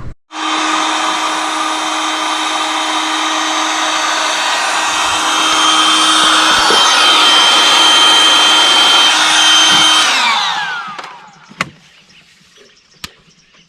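A small high-speed motor runs steadily for about ten seconds with a hissing whir and a steady hum, then spins down with a falling whine and stops.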